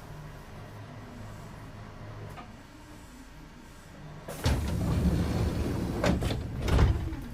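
Low, steady hum of the stopped Kintetsu 2430 series railcar's onboard equipment. About four seconds in, a loud burst of rustling and rattling starts, with two sharp knocks, and dies down near the end.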